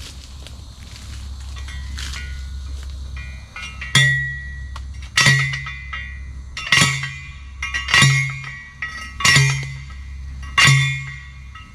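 Steel T-post being driven into the ground with a manual post driver: metal-on-metal clangs that ring after each strike. Six blows come at an even pace, a little over a second apart, starting about four seconds in.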